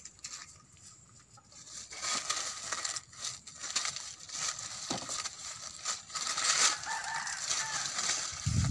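Dry maize husks and leaves rustling and crackling as ripe ears are grabbed and snapped off the stalks by hand, starting about two seconds in, with a dull low thump near the end.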